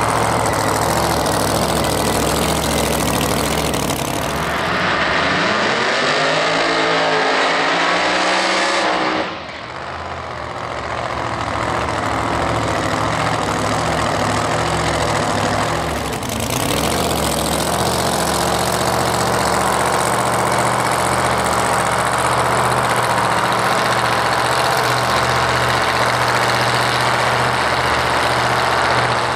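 Supercharged V8 of a blown Mustang drag car running loud at high revs during a burnout. Its pitch sweeps up and down for a few seconds, drops off suddenly about nine seconds in, then comes back and holds steady.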